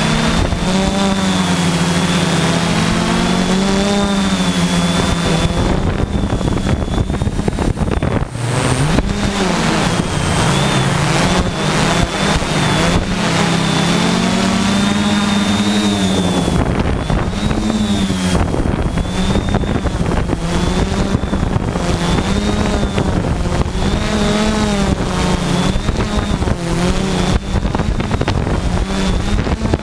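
Quadcopter's electric motors and propellers humming, heard from on board, the pitch wavering up and down continually as motor speeds change, with a thin high whine and wind noise on the microphone.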